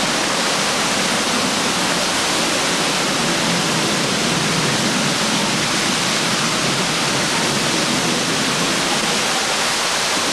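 Waterfall pouring into a pool: a steady, loud rushing of falling water.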